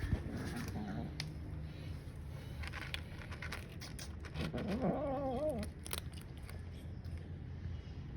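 Domestic cat eating, with scattered wet clicks of chewing, and one wavering vocal call of about a second and a half midway through: a warning noise made while eating because another cat is close by.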